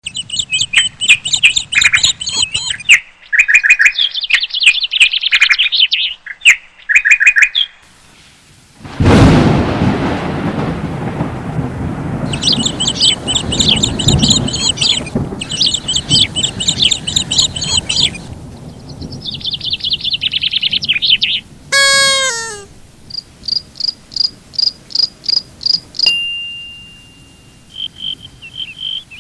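Runs of high, rapid bird chirps and tweets, repeated in separate bursts. About nine seconds in, a sudden loud rush of low noise starts and slowly fades over several seconds while the chirping carries on. A quick falling whistle-like call comes a little past twenty seconds.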